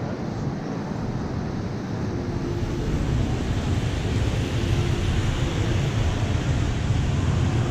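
A vehicle running: a steady low rumble under a rushing noise, growing louder about three seconds in.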